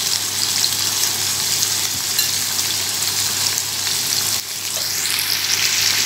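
Shrimp shallow-frying in a little oil in a nonstick frying pan: a steady sizzle with faint scattered crackles. It dips briefly about four and a half seconds in.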